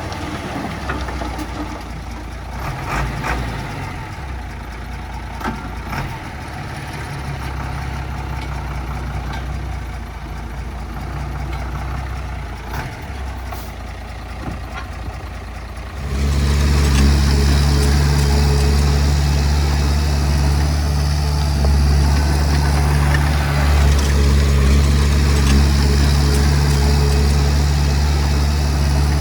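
Diesel engine of heavy earthmoving equipment running steadily, with a few short clanks. About halfway through, the engine sound suddenly becomes much louder and deeper and stays that way.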